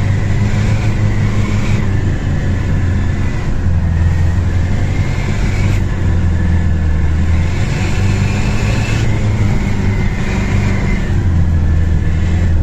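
Off-road 4x4's engine running steadily under load while driving through snow, a low drone that shifts slightly in pitch every few seconds with the throttle.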